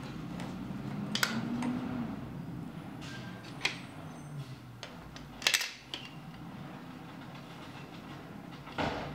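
Plastic LEGO DUPLO bricks clacking as they are handled on a wooden floor: about four sharp clicks, the loudest near the middle, over a low steady hum.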